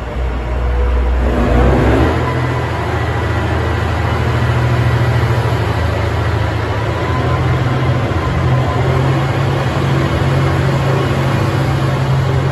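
JR Hokkaido H100-series diesel-electric railcar pulling away from a station platform: its engine drone swells over the first two seconds and then holds loud and steady as the cars roll past, with a thin steady whine above it.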